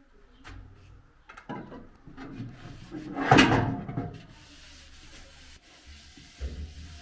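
Rubbing and scraping with a few light knocks; the loudest is one harsh scrape about three and a half seconds in, with a smaller bump near the end.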